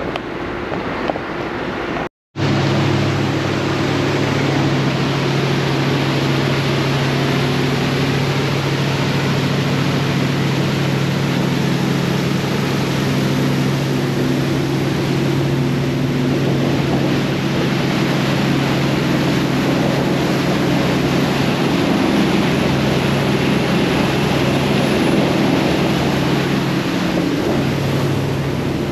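Prestige 520 Flybridge motor yacht running underway: a steady engine drone with a low hum, over the rush of the wake and wind. The sound cuts out briefly about two seconds in.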